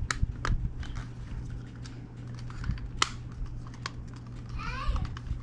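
Scattered small plastic clicks and taps as the controller's casing and internal parts are handled and pressed into place, irregular and a few per second at most, over a steady low hum.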